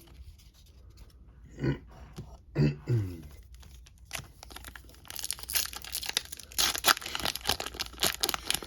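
Trading-card pack wrapper being torn open and crinkled by hand: a dense run of sharp crackling that starts about four seconds in and grows busier.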